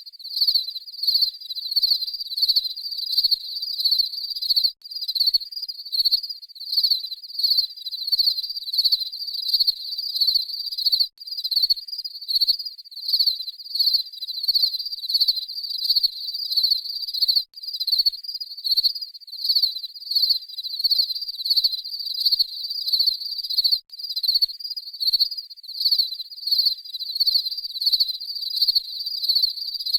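Crickets chirping: a steady, even run of short, high-pitched chirps.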